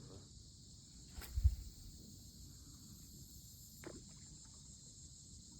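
Steady high chirring of a night insect chorus, crickets, with a low thump about a second and a half in and a short falling sound near the four-second mark.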